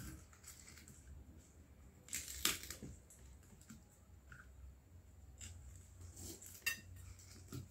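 Faint crackling and clicking of fingers picking food out of a small steel bowl, with a louder crackle about two and a half seconds in.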